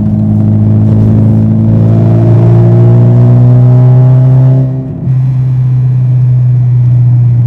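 Car engine and exhaust pulling under acceleration, the pitch rising steadily for about four seconds. The sound then drops off briefly about five seconds in and settles back to steady running.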